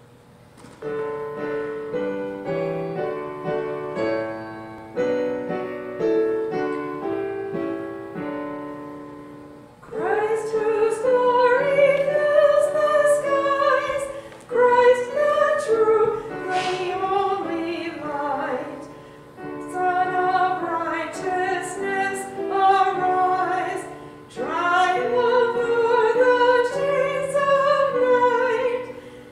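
Piano plays slow chords as an introduction for about ten seconds, then a soprano voice with wide vibrato enters and sings long phrases over the piano accompaniment, pausing briefly between phrases.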